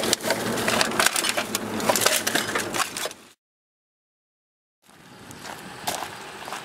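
Plastic wrappers and snack trash crinkling and crackling as they are crushed down underfoot on a car floorboard, dense for about three seconds, then cutting off to silence. After the silence comes a faint outdoor background with a crunch or two.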